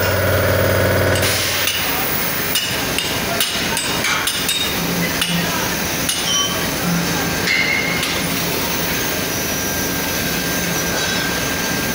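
Iron foundry pouring floor: a steady industrial din with irregular sharp metallic clinks and knocks, most of them in the first few seconds, while molten iron is poured from a ladle into sand moulds.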